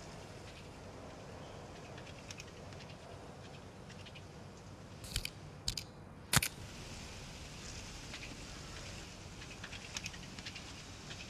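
Animated film soundtrack: a steady faint hiss with scattered light ticks, broken by three sharp clicks about halfway through, the third the loudest.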